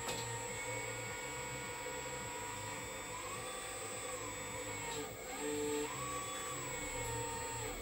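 Homemade hydraulic system of an RC Liebherr 954 excavator running with a steady whine and hum as the boom and arm lift, its pitch going up and back down twice.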